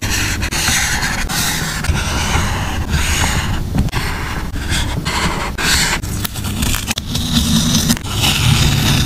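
Paper and stickers being handled for a journal collage: repeated scraping and rustling strokes, each about half a second to a second long, with short pauses between them.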